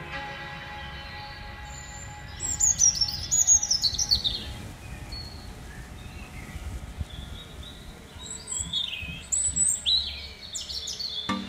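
Bird chirps: a quick run of high chirps, each falling in pitch, about two and a half seconds in, then scattered chirps again near the end.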